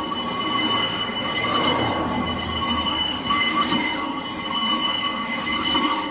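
Heavy steel block faced with sandpaper dragged back and forth across the aluminium deck of a Toyota 2JZ cylinder head, a rasping scrape that swells with each stroke about every two seconds, over a steady high-pitched whine. This is the head being hand-resurfaced flat, with no downward pressure, just the block's weight.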